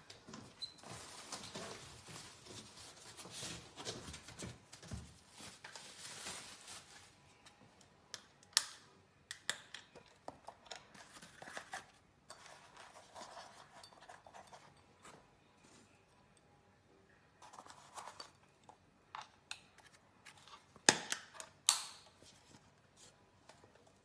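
Rustling and handling noise of cardboard boxes and packaging being rummaged through, with scattered sharp clicks and knocks: one about eight seconds in and a louder cluster about three seconds before the end.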